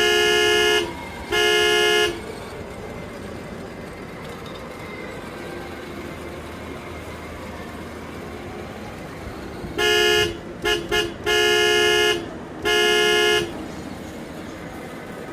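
Horn of a kid's electric ride-on toy sport bike honking in short steady bursts. There are two honks at the start, then a cluster of honks, some very brief, about ten to thirteen seconds in.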